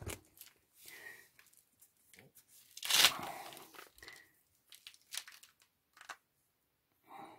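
Close handling noise: scattered small clicks and rustles, with one louder crinkling rustle about three seconds in, as a small oil pump plug and its shims are handled and the camera is moved about.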